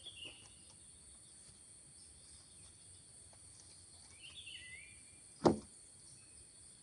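Quiet outdoor background with a steady high insect drone, two short chirps, and one sharp knock about five and a half seconds in.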